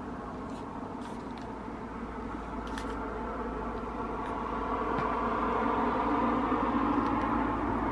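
A car on the move: steady road and engine noise, growing louder about halfway through.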